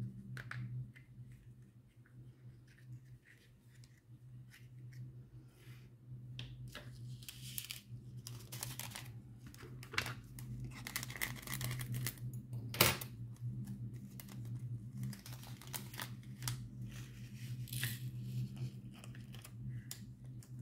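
Small plastic bag of diamond-painting drills rustling and crinkling in the hands, with scattered light clicks and rattles as the drills are tipped into a plastic tray and a small plastic storage container, and one sharper click about 13 seconds in. A low steady hum underneath.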